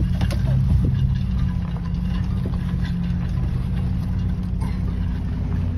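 The vehicle's engine and tyre noise heard from inside the cab while driving slowly along a dirt track: a steady low drone, with a few knocks in the first second.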